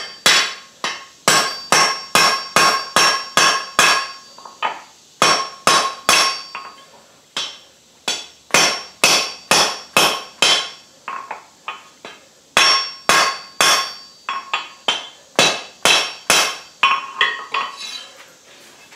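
Hand hammer striking red-hot steel on a JHM anvil, with the anvil ringing after each blow, while the ears of a forged bulldog bottle opener are bent over. The blows come in quick runs of about three a second with short pauses between runs, and grow lighter near the end.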